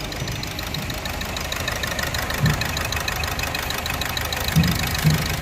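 Car engine idling with a fast, even ticking, a few low thumps among it. This engine has a knock that disappears when the fourth injector's connector is pulled, so the fault lies in that injector, its cylinder or its wiring.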